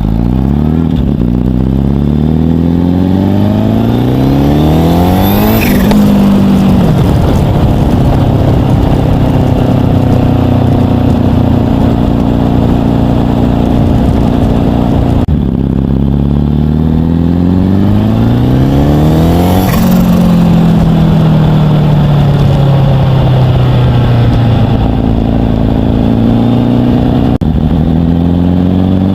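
Turbocharged engine pulling hard twice, its pitch climbing with a rising turbo whistle, then easing off on a light throttle. The pitch falls away and the turbo flutters as the throttle is lifted.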